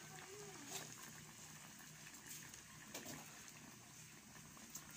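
Faint simmering of fish in coconut milk in a wok, with a few soft pops spread through.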